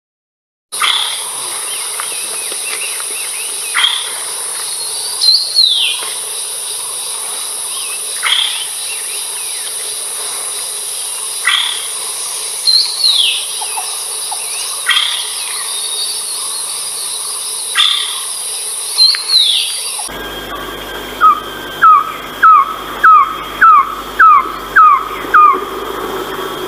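Philippine trogon calls over a steady high insect drone: single sharp falling notes every few seconds, with a few longer falling whistles. About twenty seconds in, the drone stops and a run of about ten short descending notes follows at about two a second, the loudest part.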